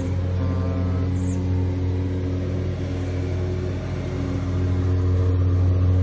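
A steady low mechanical hum, like an engine running, a deep even drone that grows a little louder near the end.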